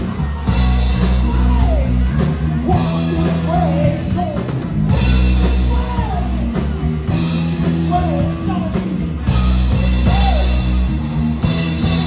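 Rock music with a sung vocal over drums, bass and electric guitar, with a steady beat and ticking cymbals.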